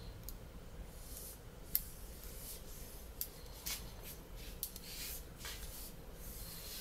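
Faint scattered clicks and short scratchy rustles of small handling noises, the sharpest click about two seconds in.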